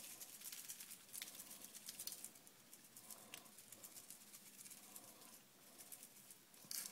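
Faint rapid rattling patter of a spice shaker being shaken, sprinkling dry rub granules onto raw steaks. Busiest in the first couple of seconds, then a few scattered shakes.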